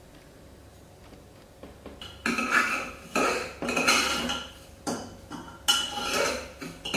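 Metal spoon scraping round a pressure cooker while stirring broken wheat (daliya) as it roasts on low heat. Quiet for about two seconds, then a run of about six scraping strokes.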